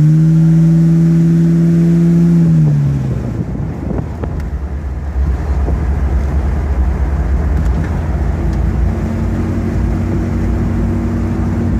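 Rear-mounted big-block V8 of a custom 1982 Pontiac Firebird, heard from inside the cabin as the car sets off. The engine note climbs, holds for about two seconds, then drops away about three seconds in and settles into a low rumble with road noise while the car drives on.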